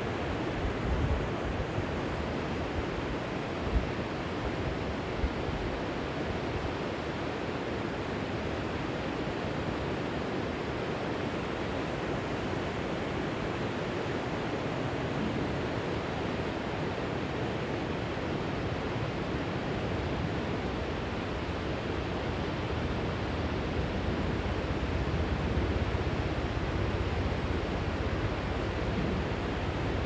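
Steady rush of water pouring over a low river weir. There are a few short low bumps in the first seconds, and a low rumble swells near the end.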